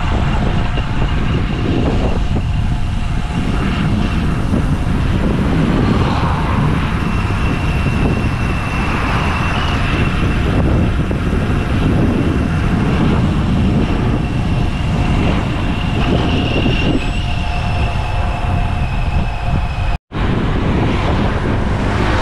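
Steady wind rumble and road noise from riding a bicycle along a road with traffic. The sound cuts out for a split second near the end.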